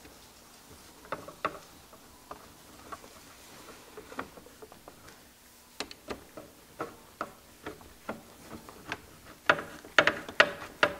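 Screwdriver driving T25 Torx screws into the plastic third brake light housing: small irregular clicks and ticks, with a few louder clicks about nine and a half to ten and a half seconds in.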